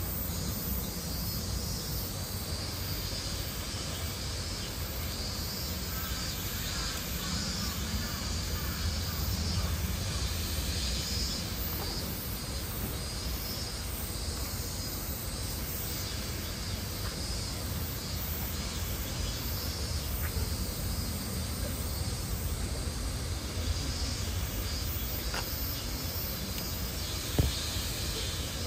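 Steady outdoor ambience: a fluttering insect drone over a low rumble, with one sharp click near the end.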